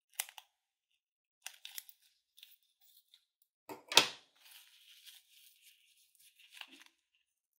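Scissors snipping into a rubber balloon filled with clear plastic beads, a few short cuts near the start and again a second or so later, then a sharp snap about four seconds in as the rubber tears open. After it the beads rustle and click softly as they shift and spill into a hand.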